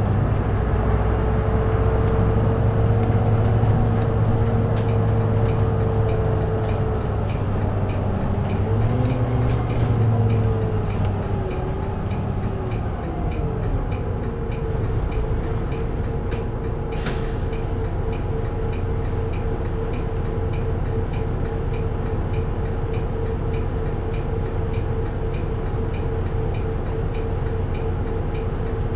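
Cabin sound of a Volvo B7RLE city bus and its seven-litre six-cylinder diesel: the engine drones while the bus rolls and slows, its note rising and falling about nine to eleven seconds in. For the second half the bus is stopped and the engine idles steadily.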